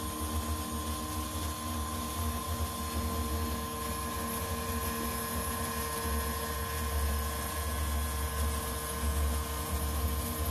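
A rebuilt 6040 CNC router's spindle runs steadily while a 3 mm end mill takes a shallow contour cut in 304 stainless steel under flood coolant. It makes an even whine with several fixed tones over a low hum.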